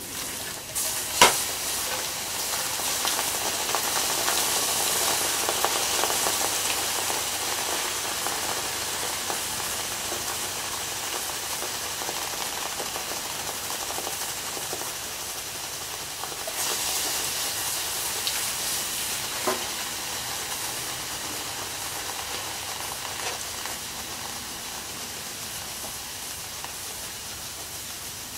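Water poured from a bucket onto a steel tube heated to about 900 degrees, steadily hissing and sizzling into steam as it quenches the outer tube so it shrinks onto the inner tube for a shrink fit. A single sharp knock sounds about a second in, and the hiss swells again a little past halfway.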